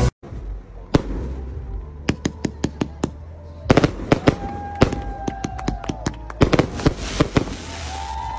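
Aerial fireworks bursting in a rapid series of sharp bangs and crackles. In the second half, long tones that rise and fall run over them.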